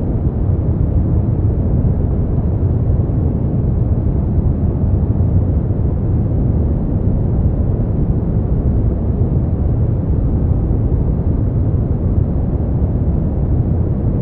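Smoothed brown noise: a steady, even hiss weighted heavily to the low end, with no treble and no changes.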